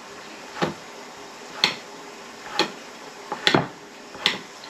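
Cheese being shredded by hand on a cutting board: five sharp knocks, about one a second.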